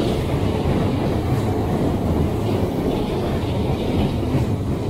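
Trains passing close by: a Keikyu commuter train rolling across a steel truss bridge, with a Narita Express E259 passing below. The wheels on the rails make a steady, loud rumble with a few faint clicks.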